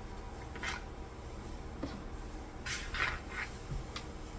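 Faint rustling and scraping from small items being handled, in a few short bursts, the busiest about three seconds in.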